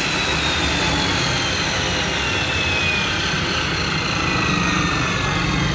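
Worx WU763 355 mm abrasive cut-off saw winding down: its motor and cutting wheel coast with a whine that falls slowly and steadily in pitch. A steady low rumble sits underneath.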